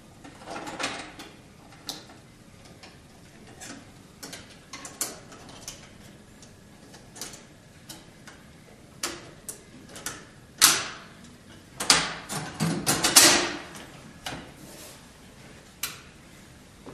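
Clicks and knocks of a thermal print head assembly being handled and fitted into a Toshiba B-EX4T1 label printer, metal and plastic parts tapping together. A quick run of louder clacks comes about two-thirds of the way through.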